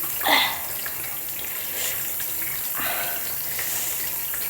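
Water running from a tap into a sink, with a couple of brief splashes, about a third of a second in and again near three seconds, as someone washes.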